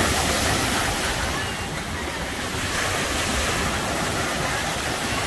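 Lake Michigan surf breaking and washing on a sandy beach, a steady rush that swells and eases slightly, with wind rumbling on the microphone.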